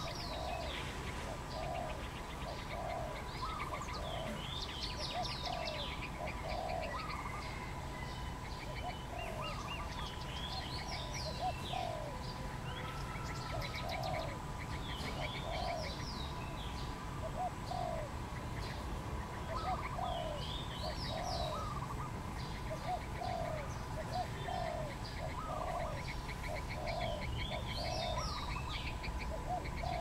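Spotted dove cooing, low notes repeated about once a second, mixed with higher chirps and whistles from other birds every few seconds and a faint steady high tone.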